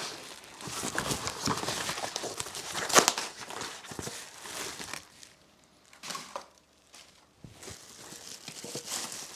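Plastic packaging crinkling and rustling as a part is handled and unwrapped, with one sharp click about three seconds in. It goes quieter for a couple of seconds past the middle, then the crinkling starts again.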